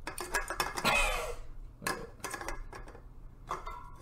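Aluminium beer cans clinking and knocking against each other and the wooden tabletop as they are set on top of one another into a stack, with a louder clatter about a second in.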